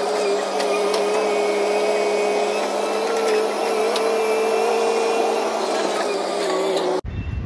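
Caterpillar tracked excavator running steadily while working, a loud machine whine whose pitch wavers slightly, cutting off abruptly near the end.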